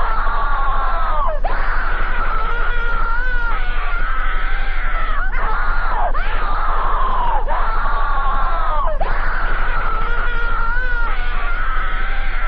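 A wavering, scream-like voice looped over and over, the same cycle repeating about every four seconds with a short sweeping glide at each seam. A steady low hum runs underneath.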